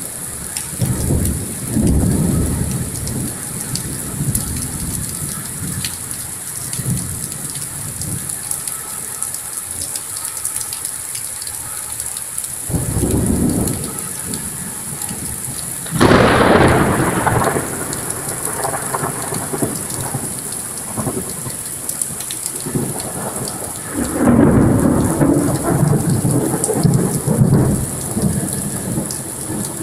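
Thunderstorm: steady rain hiss with thunder rumbling several times. The loudest peal starts suddenly about halfway through, and a long rumble comes near the end.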